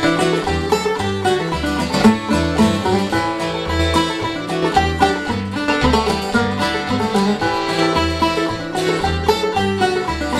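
Old-time string band playing a traditional tune instrumentally: claw-hammer banjo up front, with guitar, fiddle and bass. The bass keeps a steady beat of about two notes a second.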